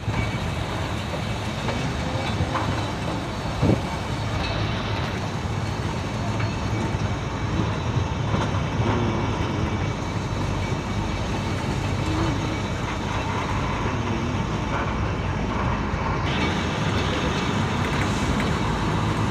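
Matheran narrow-gauge toy train running, heard from aboard a coach: a steady rumble and rattle of wheels on rail with the diesel locomotive's drone, small clicks through it and one sharp knock about four seconds in.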